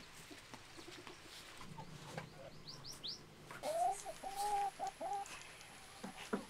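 Chickens calling: a run of four short pitched notes about halfway through, just after three quick high chirps.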